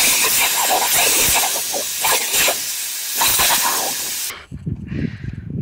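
Garden hose spraying a loud, hissing jet of water at a boxer dog that bites at the stream. The spray cuts off suddenly about four seconds in, leaving a low rumble.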